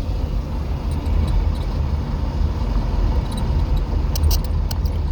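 A vehicle driving slowly at about 23 miles an hour, heard from inside the cab with a window open: a steady low rumble of engine and road, with a few light clicks near the end.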